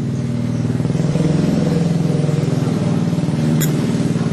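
An engine running steadily, with a slight rise in pitch about a second in. It cuts off suddenly at the end.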